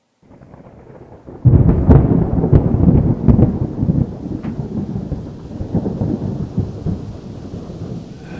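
A thunderclap: a low rumble builds, then a loud crack about a second and a half in, followed by a long rolling rumble with scattered cracks that slowly fades.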